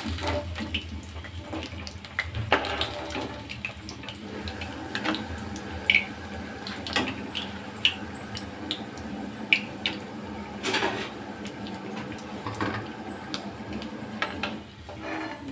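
Hot oil sizzling steadily as battered chicken pieces deep-fry in an iron kadai, with scattered clicks and scrapes of a metal spatula against the pan.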